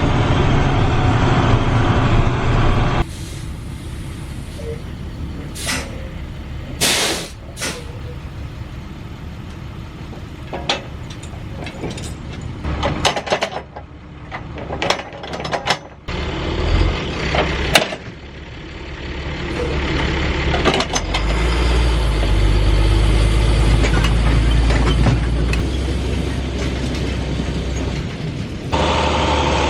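Heavy farm diesel machinery: an engine running steadily, then a quieter stretch of sharp metallic knocks and clanks, then the engine running again, louder and deeper, from about two-thirds of the way in.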